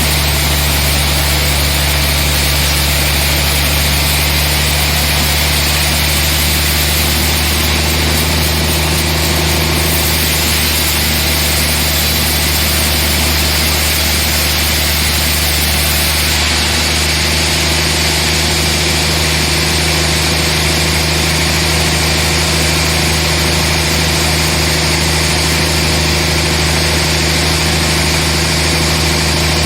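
Sawmill machinery running steadily: a constant low, engine-like hum with a hiss of higher noise over it and no breaks.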